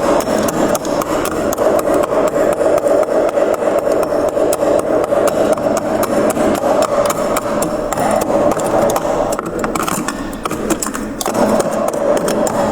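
Freezer frost crunching with dense, rapid crackling clicks, steady and unbroken apart from a brief lull about ten seconds in.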